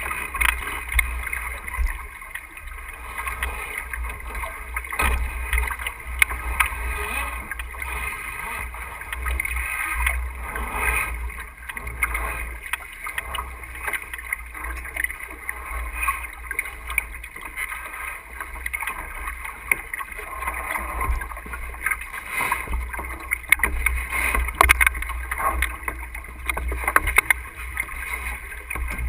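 Sailboat under way: water rushing and splashing along the hull, with wind rumbling on a bow-mounted camera's microphone, and scattered short knocks from the crew working the foredeck gear.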